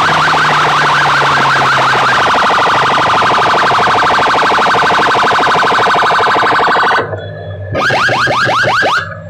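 Siren-style alarm effect played very loud through a bank of horn loudspeakers on a sound-system rig: a fast-pulsing warble that runs for about seven seconds, briefly drops, then becomes a quick run of rising whoops that cuts off sharply near the end.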